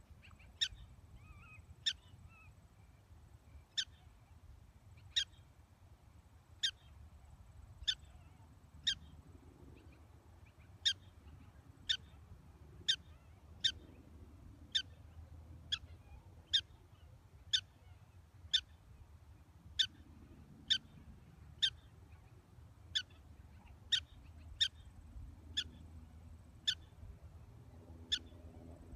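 Black-tailed prairie dog giving a long series of short, sharp chirps, about one a second, each one call.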